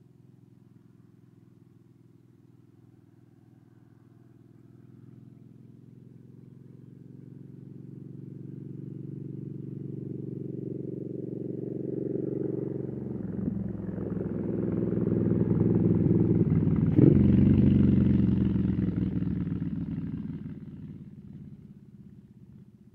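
Small propeller aircraft passing over, its engine drone building slowly, loudest about three quarters of the way through with a brief sharp click at its peak, then fading away.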